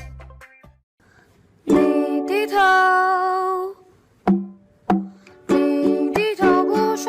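One piece of music fades out. After a short gap comes one long held note with vibrato, then ukulele strumming in a steady rhythm.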